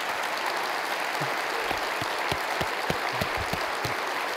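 Audience applauding steadily, with a few soft low thumps in the second half.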